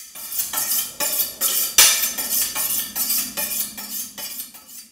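Chef's knife drawn again and again along a honing steel: a quick run of bright metallic scraping strokes, about two a second, fading toward the end.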